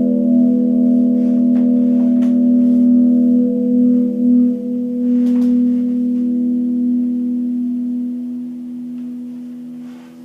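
A sustained musical tone of several steady pitches held together, slowly fading away, with a slight waver in the lowest pitch.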